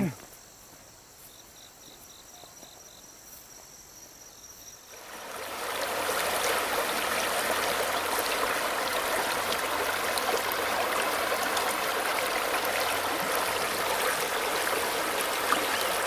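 Insects chirping faintly for about five seconds, then a shallow stream rushing steadily over stones and pebbles, much louder.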